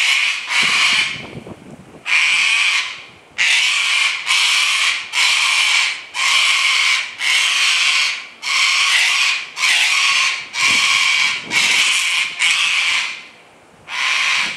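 White cockatoo screeching, about a dozen harsh, raspy calls of half a second or so each, in quick succession with two short pauses.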